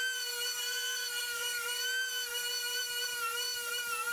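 High-speed rotary tool in a drill-press stand running with a steady high whine, sanding a small wooden ring on a sanding drum; the pitch wavers slightly as the ring is pressed against the drum.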